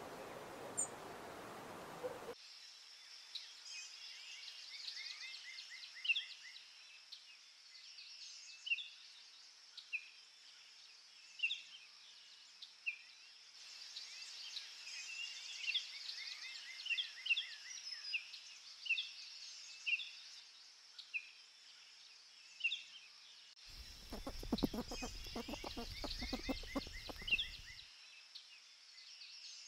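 Small birds chirping: short calls about once a second with an occasional quick trill, over a faint steady high-pitched hum. A steady hiss opens the first two seconds, and a rustling noise lasting about four seconds comes in near the end.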